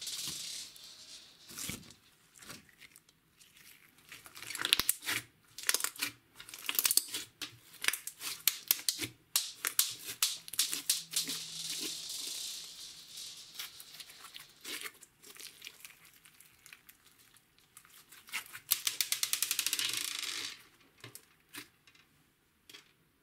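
Green glitter slime with small foam beads being squeezed and kneaded by hand: sticky crackling and popping clicks, with a fast run of pops near the end.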